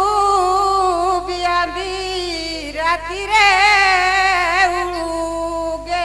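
A woman singing a folk song solo into a stage microphone, drawing out long notes with vibrato that glide slowly down in pitch; her voice swells louder about three seconds in.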